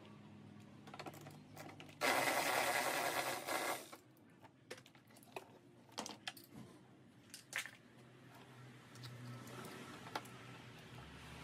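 Cordless power tool driving a socket on an extension, running for about two seconds to spin out a fastener. It is followed by scattered clicks and knocks of plastic engine-bay covers and the air-filter housing being handled and lifted out.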